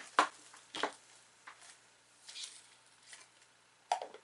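Handling sounds: a few short, soft taps and squelches as hands work the slime and set a small clay toast charm on it, the loudest just after the start and near the end.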